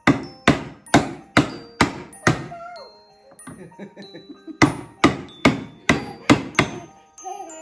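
Hammer blows during assembly of a child's mini toy car, metal-on-part strikes with a short ring. They come as a quick run of about six blows, a pause of about two seconds, and a second run of about six.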